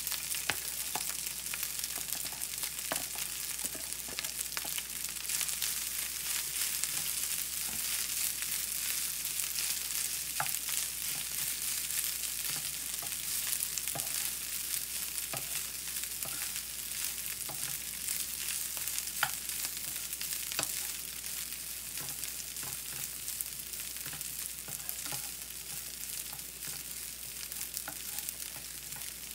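Garlic fried rice sizzling in oil in a nonstick frying pan as it is stirred and turned, with a steady hiss and scattered light taps and scrapes of the wooden spatula against the pan.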